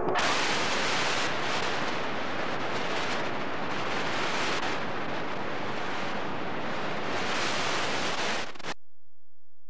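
Steady hiss of videotape static from blank, unrecorded tape after the recording ends, cutting off suddenly near the end.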